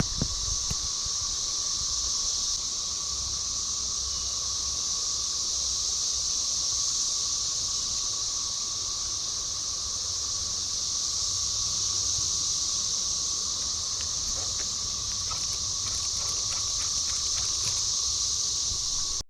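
Cicadas droning in a steady chorus: a continuous high-pitched buzz with a lower steady hum under it, unbroken throughout. A few faint ticks and rustles come in the second half.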